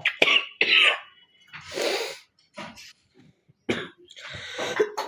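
A girl coughing repeatedly in a run of short, separate coughs, with a longer cough about two seconds in and more coughs near the end.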